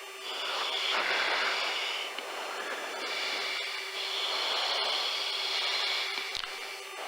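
Steady hiss of cockpit and airflow noise inside an F-18 chase jet, heard over the intercom with a faint steady hum, swelling louder twice.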